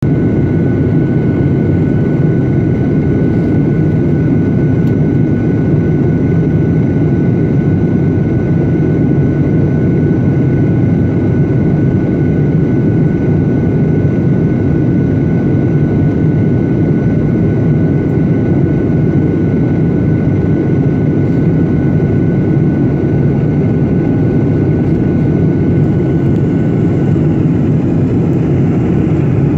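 Jet airliner cabin noise heard by the wing during descent: a loud, steady low rush of airflow and turbofan engine, with a faint steady high whine above it.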